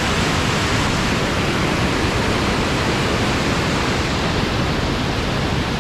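Mountain stream cascading over boulders: loud, steady rushing of white water.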